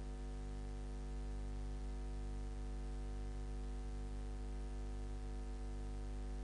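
Steady electrical hum with a buzz of overtones, unchanging throughout, with a faint regular pulsing in its low end.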